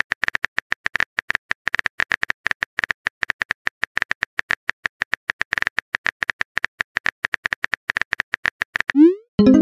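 Texting-app keyboard sound effect: rapid, even typing clicks as a message is typed letter by letter. Near the end comes a short rising swoosh and a pitched message-sent tone.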